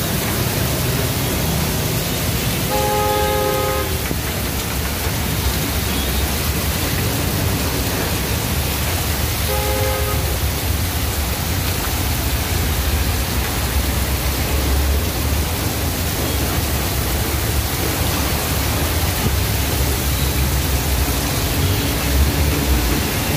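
Heavy rain pouring down steadily, with traffic driving through a flooded street. A vehicle horn sounds twice: about three seconds in, then briefly about ten seconds in.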